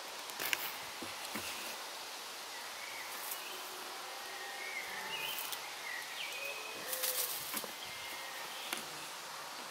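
Dry leaves and twigs on the forest floor crackle and rustle in short, irregular bursts, loudest around seven seconds in. Faint high chirps sound over a steady woodland hiss.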